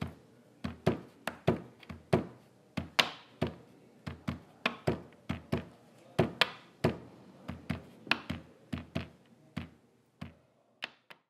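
An irregular run of sharp taps and knocks, a few a second, some with a short ring, thinning out and stopping near the end.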